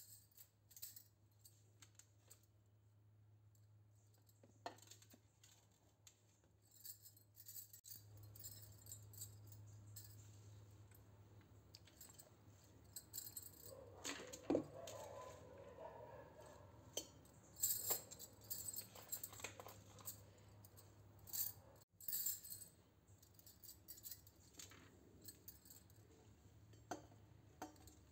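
Faint clinks of a steel plate against a steel mixer-grinder jar and the rustle of fresh coriander and green chilies being dropped into the jar, over a steady low hum. The clinks come thickest about halfway through.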